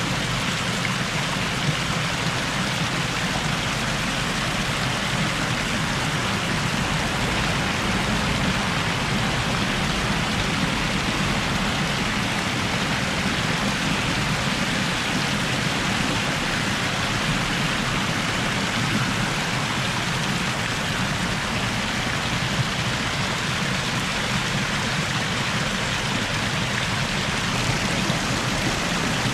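Water from a wall fountain pouring down and splashing in a steady, unbroken rush.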